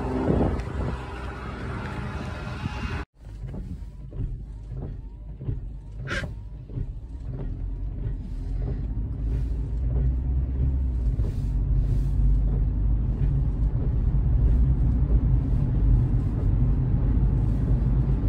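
Wind buffeting the microphone for about three seconds. Then a car driving in the rain, heard from inside the cabin: a steady low road rumble that grows louder, with scattered light ticks.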